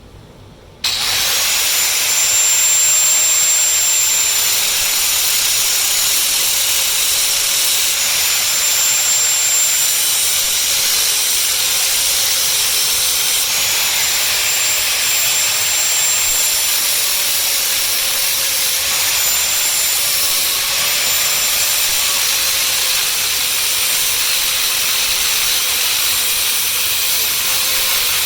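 A loud, steady hiss that starts suddenly about a second in and runs on evenly, with a faint high whine and a lower tone that both waver slightly now and then.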